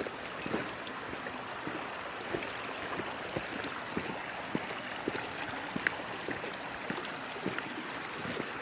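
Mountain stream flowing: a steady rush of water with scattered small splashes and clicks.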